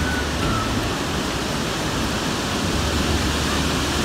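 Steady rush of water moving through a canal lock chamber, an even hiss and roar with no breaks.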